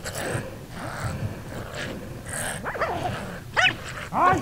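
Tracking dogs yelping and whining at a honey badger: several short, high cries that rise and fall, coming in quick succession in the second half, the loudest near the end.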